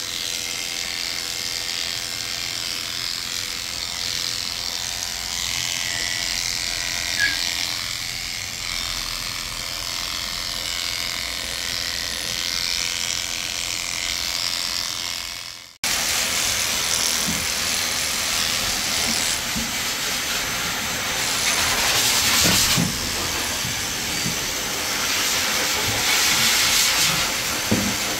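Electric dog grooming clippers running steadily as they shave through a matted coat. About halfway through the sound cuts off abruptly, and a louder, hissier running sound follows with a few light knocks.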